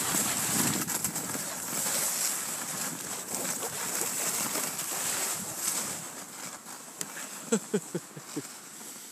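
Cross-country skis sliding over snow on a downhill run, an even hiss that fades toward the end. Near the end come about four short, sharp squeaks in quick succession.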